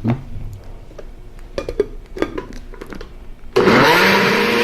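Ordinary kitchen blender starting up suddenly about three and a half seconds in, its motor rising briefly in pitch and then running steadily as it purées chopped zucchini with water. A few knocks and clicks come before it.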